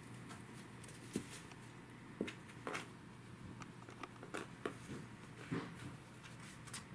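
Norwegian Forest Cats moving about among cardboard boxes on a carpet: soft scuffs of paws and fur against cardboard, with a handful of short, scattered knocks and taps.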